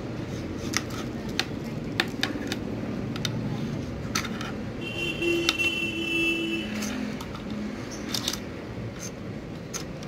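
Wire leads and small plastic connectors of a BLDC motor controller's wiring loom being handled and sorted: scattered light clicks and rustles over a steady background hum. A brief steady high tone from the background sounds about five seconds in.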